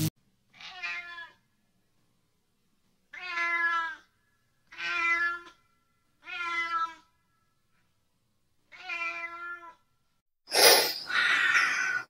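A cat meowing five times, each call short and evenly pitched, with pauses between them, followed near the end by a louder, rough, noisy sound lasting about a second and a half.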